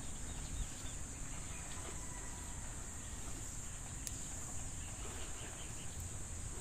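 Steady high-pitched insect chorus droning without a break over a low outdoor rumble, with one light tick about four seconds in.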